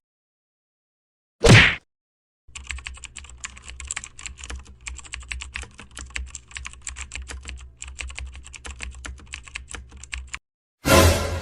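Computer keyboard typing: rapid, uneven key clicks for about eight seconds. A single short, loud burst of noise comes about a second and a half in, and another just before the end.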